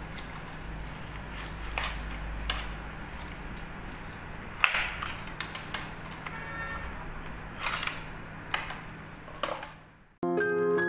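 Handling noises from unpacking a small cardboard box of wireless-microphone parts: scattered clicks and crinkles of the box and its small plastic wrappers, the sharpest about halfway, over a steady low hum. Near the end the sound cuts out and piano music begins.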